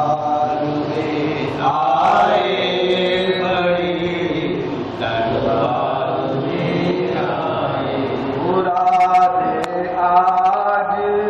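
A man's voice chanting a naat unaccompanied, drawing each word out into long held, ornamented notes in phrases of a few seconds.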